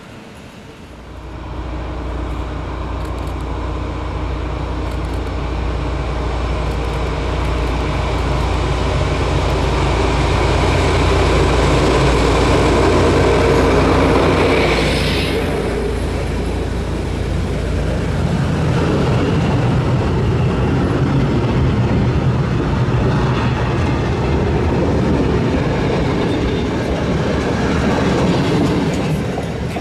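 SU45 diesel locomotive hauling a passenger train past at close range. Its low engine drone builds up and is loudest just before the halfway point, when a high sweep falls in pitch as the locomotive goes by. The carriages then roll past.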